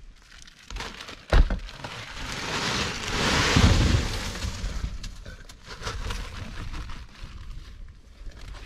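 Chunks of ice tipped out of a sack onto fish on a wooden deck, rattling and crunching. A sharp knock comes about a second and a half in, then a loud rough rush of falling ice peaking a little past the middle, and scattered clinks as it settles.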